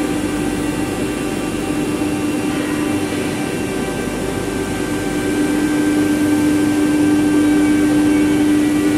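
Spindle of a 4-axis ATC CNC router running with a steady pitched hum and whine, growing louder from about halfway through.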